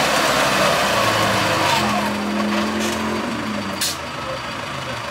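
Lifted Jeep Cherokee on mud tires pulling up a steep muddy slope, its engine working hard with the pitch shifting as it climbs, fading as it moves away. A sharp click about four seconds in.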